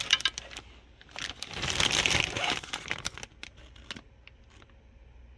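Plastic packaging crinkling as it is handled, with light clicks and taps of parts among it. The crinkling is loudest from about one to three seconds in, then gives way to a few scattered ticks.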